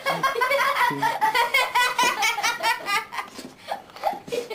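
A person laughing hard in rapid, repeated bursts, easing off briefly near the end.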